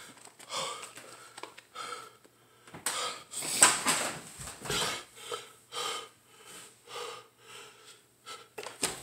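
A man breathing hard in quick, hissing, wheezy breaths, the loudest about three and a half seconds in. It is his reaction to the burn of the Carolina Reaper chip he has just eaten.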